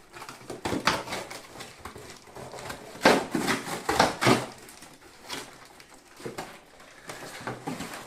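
A cardboard delivery box being opened by hand: irregular rustling and scraping of cardboard and packaging, loudest about three to four and a half seconds in.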